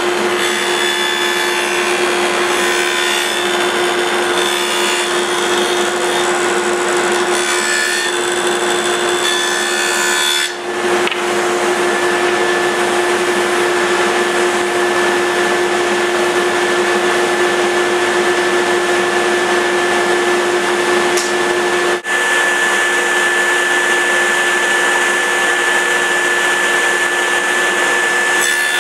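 A woodworking power tool runs steadily while cutting wood, a constant motor whine under the noise of the cut. The sound breaks off very briefly twice, about a third of the way in and about three quarters of the way in.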